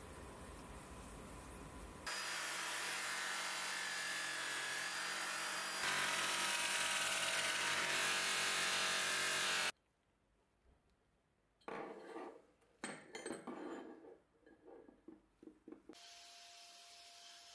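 Bench grinder wheel grinding and polishing a steel shaft turned in a drill chuck: a steady abrasive hiss that gets louder partway through, then cuts off abruptly. After a short silence come a few seconds of irregular scraping strokes, then a quieter steady hiss.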